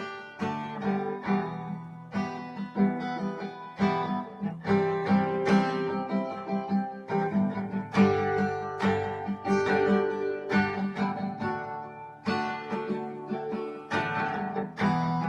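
Instrumental song intro: guitar playing a run of plucked notes and chords at a steady pace, without vocals.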